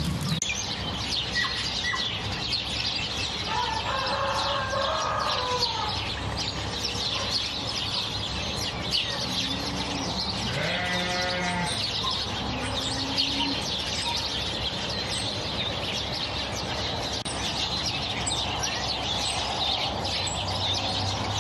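Outdoor ambience of many small birds chirping, with a few short animal calls about four seconds in and again around ten to thirteen seconds in.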